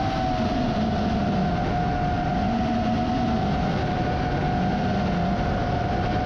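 FPV quadcopter's motors and propellers whining at a steady, held pitch in fast, low forward flight, with rushing air noise underneath.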